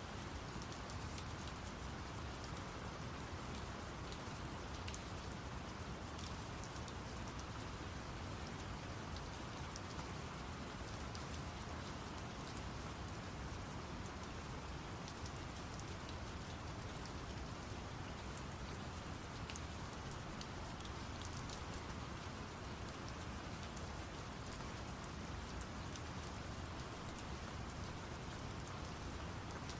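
Steady rain falling, with scattered drop ticks, layered over a low, even rumble of brown noise.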